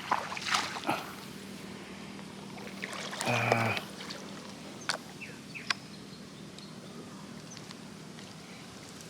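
Shallow field water splashing and trickling in short bursts while snails are picked by hand, with a few sharp clicks. A brief low buzz comes about three seconds in and is the loudest sound.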